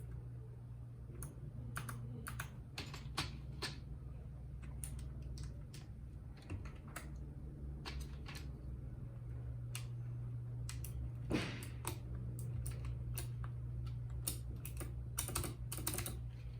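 Typing on a RAKK Lam Ang Pro mechanical keyboard with bronze switches: irregular key clicks, sometimes in quick runs, with one louder strike near the middle. A steady low hum lies underneath.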